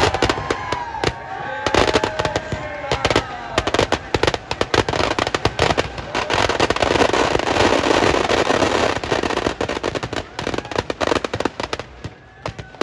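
Firecrackers packed into a burning Ravan effigy going off in rapid, overlapping bangs. The bursts merge into a dense, continuous crackle around the middle, then thin out near the end.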